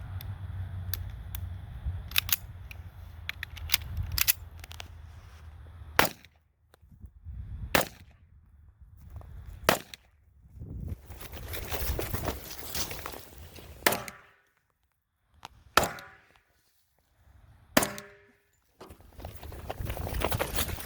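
Pistol being worked with a few sharp metallic clicks, then six single shots fired about two seconds apart, each with a short echo.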